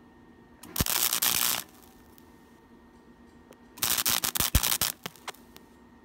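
MIG welder crackling in two short bursts of about a second each, the first about a second in and the second about three seconds later, as it fills a drilled hole in the Willys MB's sheet metal.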